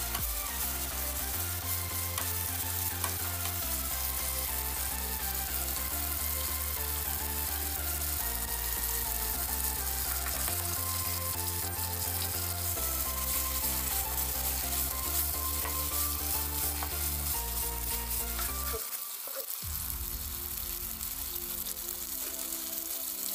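Onions, spring onions and green chillies sizzling in sauce in a nonstick frying pan, stirred and scraped with a wooden spatula. Background music with a low, slowly changing bass line plays underneath.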